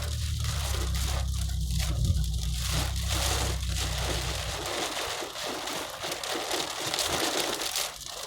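Heavy rain pelting the car's roof and windshield, a dense crackling patter heard from inside the cabin. A low steady drone runs beneath it and stops about four and a half seconds in.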